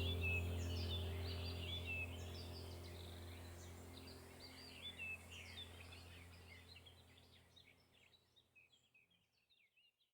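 Many birds chirping and calling over a steady low hum, the whole gradually fading out to silence.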